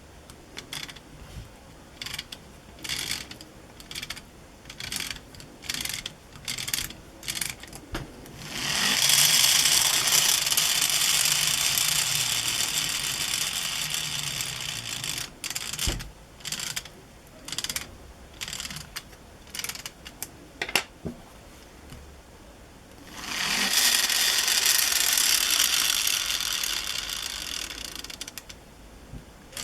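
Lego Technic syringe-powered vacuum car working through two cycles. Each cycle is a run of separate mechanical clicks, followed by a long hissing rush that fades away over about six seconds.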